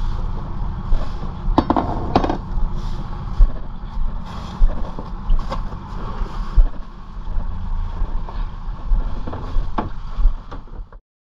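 Steady low rumble aboard a fishing boat at sea, with a few sharp knocks and clatters from the ice-hold lid and plastic fish crates being handled on deck; the loudest pair of knocks comes about two seconds in. The sound cuts off just before the end.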